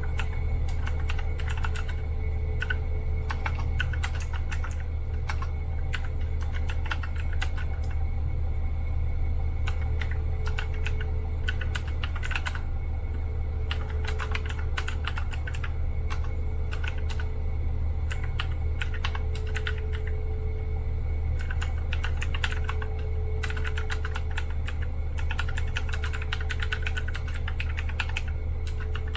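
Fast, continuous typing on a Magic-Refiner MK11 mechanical keyboard, a dense run of irregular key clicks during a typing speed test, over a steady low hum.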